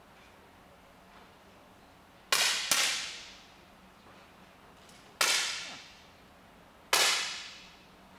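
Four 10 m air pistol shots from different shooters in the final, each a sharp pop with a short echoing decay: two close together about two seconds in, one just after five seconds and one near seven seconds.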